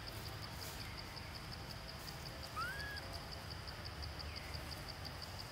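Outdoor forest ambience: insects chirping steadily at about five pulses a second over a low rumble. About halfway, a single short whistled call rises and levels off, with faint short falling chirps before and after it.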